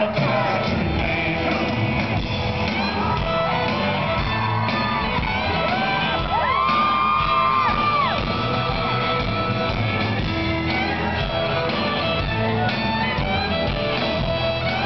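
Live country-rock band playing amplified music on stage, heard from among the audience, with shouts and whoops from the crowd over it.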